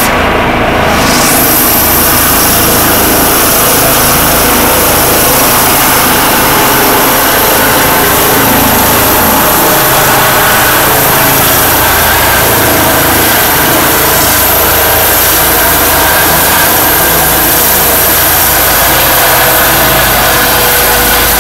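Eurocopter EC135 air-ambulance helicopter at full power as it lifts off and climbs away: loud, steady turbine whine over dense rotor noise.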